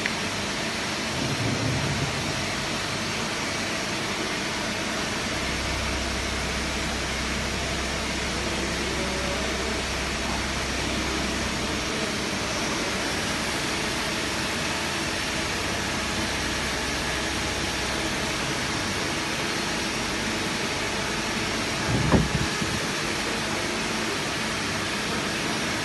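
Steady din of running machine-shop machinery and ventilation, with a low hum for several seconds in the middle and a single knock about 22 seconds in.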